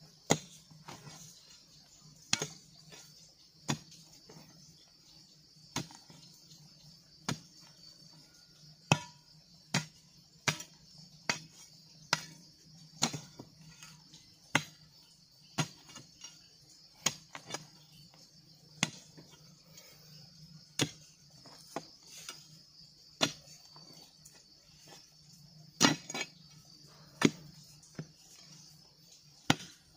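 A hand digging tool chopping into hard red clay with stones, about two dozen separate strikes at an uneven pace of one every second or two, with clods falling. Insects shrill steadily behind.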